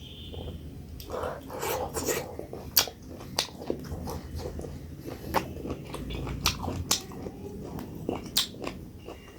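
Close-up eating sounds: wet chewing with many sharp lip-smacking clicks as mouthfuls of millet dhido and sukuti dried meat in pumpkin curry are eaten by hand.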